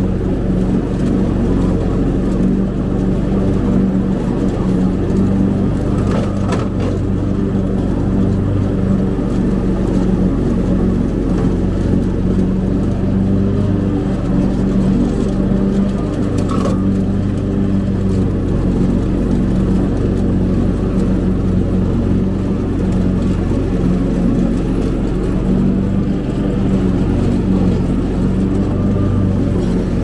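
Cub Cadet zero-turn riding mower running steadily while mowing pasture, its engine a constant even drone, with a couple of faint ticks along the way.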